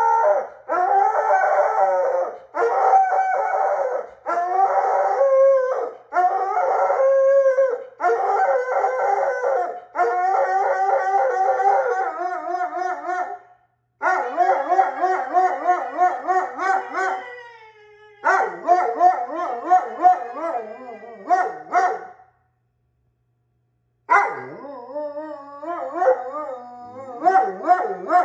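Alaskan Malamute howling, a run of long howls, each wavering up and down in pitch, with two short silent breaks.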